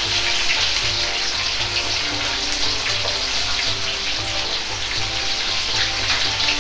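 Hot oil deep-frying chicken pieces and freshly added eggplant chunks in a wok: a steady, even sizzle of bubbling with fine crackling.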